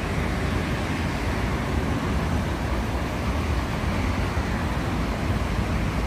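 Steady low rumble of outdoor background noise, with no distinct events.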